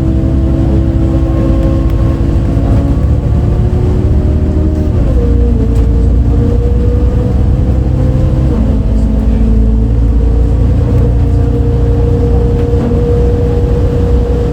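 MAN D0836 six-cylinder diesel of an MAN Lion's City A37 bus, heard from inside, running under way with a low rumble and a whining tone. The tone shifts pitch abruptly about five seconds in and again near nine seconds, as the ZF Ecomat automatic gearbox changes gear. The engine note is unusual for this bus, by the recorder's account.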